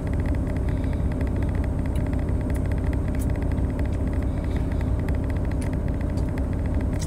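Steady low rumble of a truck engine idling, heard from inside the cab.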